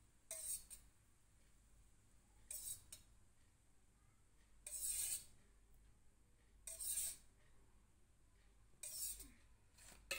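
A metal spoon scraping against steel, five short scrapes about two seconds apart, as ghee is scooped out and poured over flour.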